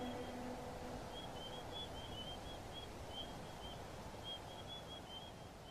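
The last held note of the song dies away about a second in, leaving faint, short high chirps, several a second, over a soft hiss that fades steadily down.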